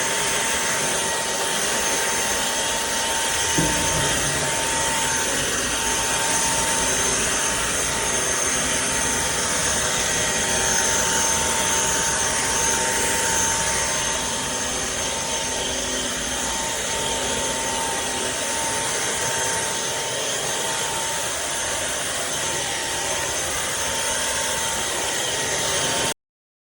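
Trucozie cordless stick vacuum running steadily, a whooshing rush with a thin whine. There is a brief knock about three and a half seconds in, and the sound cuts off suddenly near the end.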